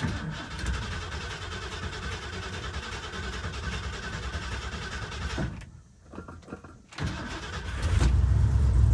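A car or truck engine starting and running. The sound breaks off about five and a half seconds in, then comes back with a louder, deeper running near the end.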